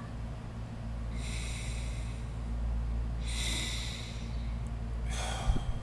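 A man taking three slow, deep breaths close to the microphone, a couple of seconds apart, to gather himself before speaking. A steady low hum runs underneath, and there is a short knock near the end.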